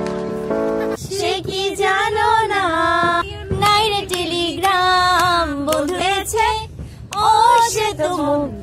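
Music: for about the first second, steady held chords, then a female voice singing a melody, sliding between notes, until the end.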